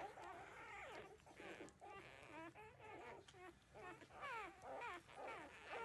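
13-day-old puppies whimpering and squeaking: many short, overlapping high whines, several gliding down in pitch, one after another throughout.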